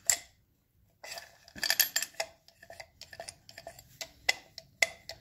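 Irregular metallic clicks and clinks from a Ford 8N tractor's governor assembly worked by hand, its ball-driven mechanism moving the throttle lever back and forth. A short pause comes just after the start, then the clicking runs on.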